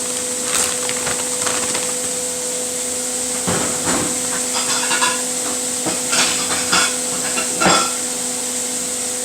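Thick-cut bacon sizzling in a frying pan as its fat renders, a steady hiss over a constant hum. Scattered clicks and knocks of kitchen handling sound at intervals, the loudest near the end.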